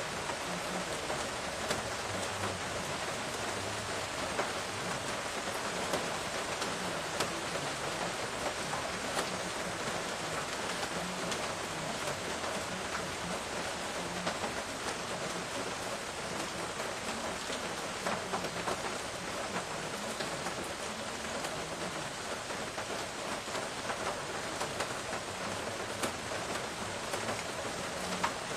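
Steady rain falling: a constant even hiss with frequent sharp ticks of single drops landing close by.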